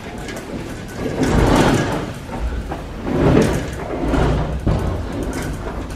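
Sonic steel garage tool cabinets being slid and shifted into position: several swells of scraping and sliding with a low rumble underneath, strongest about a second and a half and three seconds in.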